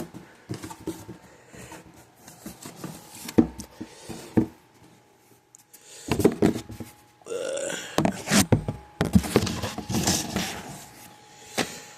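Handling of a new wiring harness and its packaging: irregular clicks, knocks and rustling, busier in the second half, with a short pitched sound rising in pitch about seven seconds in.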